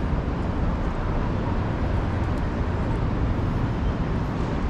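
Steady rumble of a moving road vehicle, heard as road and engine noise.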